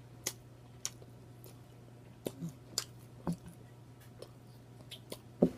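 Close-miked chewing with lip smacking: a scattering of short, sharp wet mouth clicks and smacks a fraction of a second to a second apart as someone eats.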